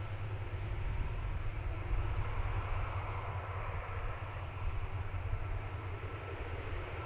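Steady rumble of jet aircraft engines, with a flickering low buffeting that sounds like wind on the microphone; it swells slightly a second or two in.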